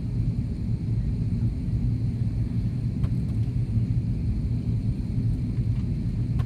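Steady low rumble of cabin noise inside an Airbus A330-300 airliner in descent: engine and airflow noise heard from a window seat.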